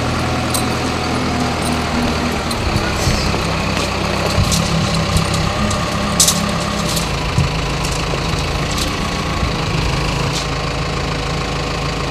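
Diesel engine of a Dieci Samson telehandler running steadily at idle, with scattered sharp metallic clinks from lifting chains being handled, the loudest about six seconds in.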